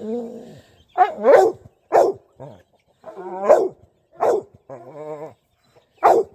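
Dog barking repeatedly, a sharp bark roughly every second, with one longer buzzy call about five seconds in.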